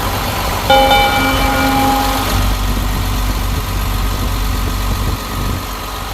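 Caterpillar 950H wheel loader's six-cylinder diesel engine running steadily after an overhaul. About a second in, a loud pitched tone sounds over it for roughly a second and a half.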